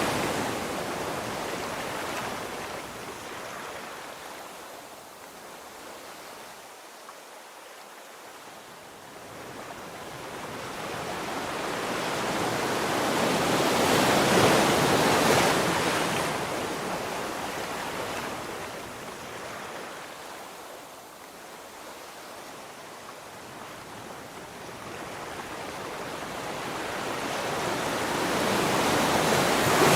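Sea waves washing ashore: a steady rush of surf that swells and fades slowly, building to a peak about halfway through and again at the end.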